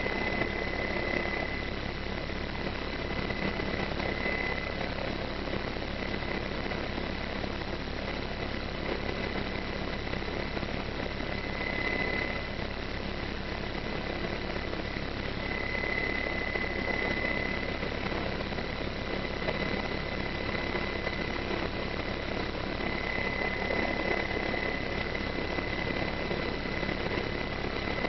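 Army MedEvac helicopter's engines and rotor running steadily, heard from inside the cabin while it sits on the ground, with a high whine that swells and fades every few seconds.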